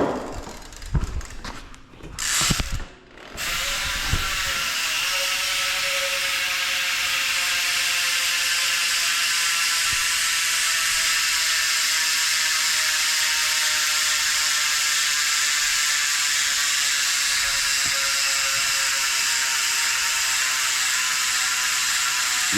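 Profile rear hub's freewheel pawls clicking over the ratchet in a fast, steady buzz as the rear wheel spins freely. A few knocks from handling the bike come in the first few seconds before the buzz settles in.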